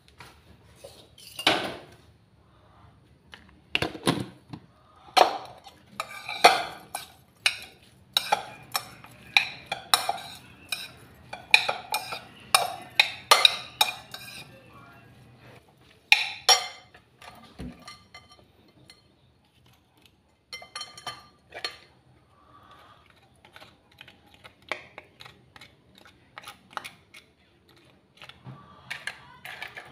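Metal spoon clinking and scraping against a ceramic bowl as a shredded salad is tossed and mixed, in quick irregular strokes. The strokes come thickest in the middle, then pause and turn sparser.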